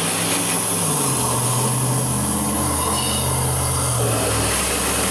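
Flush gun blasting through a badly fouled cooling system on a 3.8 V6, a loud, steady rushing hiss with a low hum beneath it.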